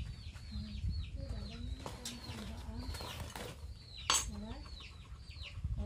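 Small birds chirping over and over in quick, falling chirps, with a single sharp clink about four seconds in.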